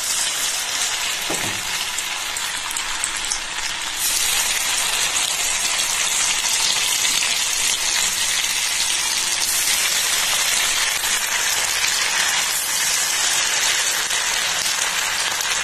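Cornflour-coated chicken pieces deep-frying in hot oil in a wok: a steady sizzling crackle that grows louder about four seconds in.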